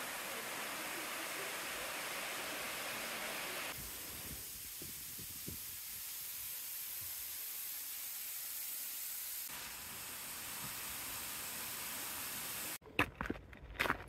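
Steady rushing hiss of a waterfall, its sound changing abruptly twice. About a second before the end it cuts off and gives way to footsteps on a gravel trail.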